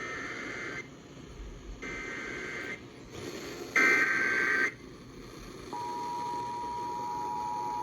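Emergency Alert System alert on a radio: three short bursts of the screeching digital SAME header about a second apart, then the steady two-tone attention signal starting near the end. It announces an incoming flash flood warning.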